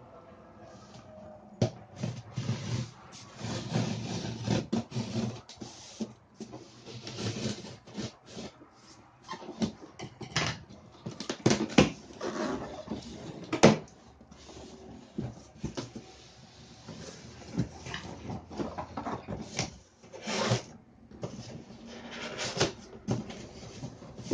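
Large cardboard shipping box being handled on a wooden desk: irregular scraping, rubbing and rustling as it is slid, turned over and opened, with a few sharp knocks around the middle.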